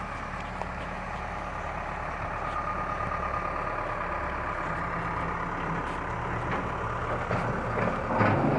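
An engine idling steadily, a low hum with a faint whine over it, and a brief louder noise near the end.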